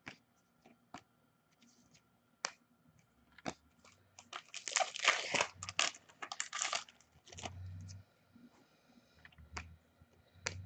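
An Upper Deck hockey card pack wrapper is torn open and crinkled for a couple of seconds about midway. Scattered clicks and taps of the cards being handled fall before and after it.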